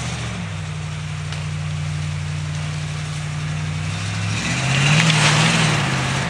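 Pickup truck engine labouring steadily under load while dragging a cedar log. A little over four seconds in it revs harder and louder, its pitch rising and wavering.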